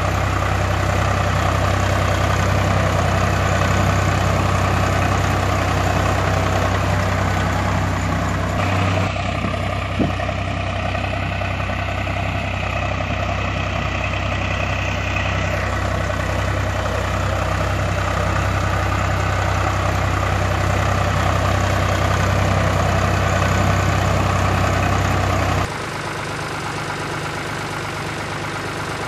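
Truck engine sound effect running steadily, with a regular low throb. Its tone changes abruptly about a third of the way in, again about half way, and near the end it drops quieter, where the sound clips are cut together; a single click comes about ten seconds in.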